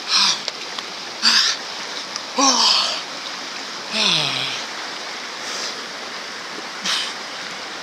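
Steady rush of river water, broken by about six short bursts of splashing, several with a brief falling-pitched vocal sound in them.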